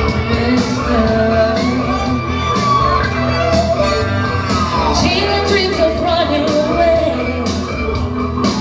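A woman singing into a microphone, amplified through a PA, over a backing track with a steady drum beat.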